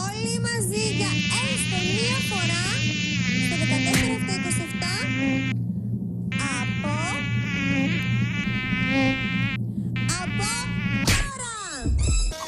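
A woman's voice electronically altered into a high, buzzing, unintelligible chatter that rises and falls like speech, over a steady low hum. It breaks off briefly twice, about halfway through and again after about ten seconds.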